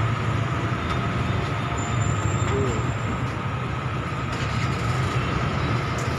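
Steady, fairly loud background rumble with a low hum and a faint steady high tone, unbroken and without distinct knocks.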